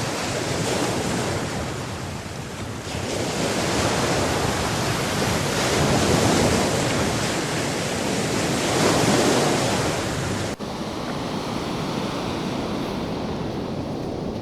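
Black Sea storm surf: waves breaking and washing up the sand, swelling and easing in surges. About ten seconds in it changes abruptly to a duller, steadier wash.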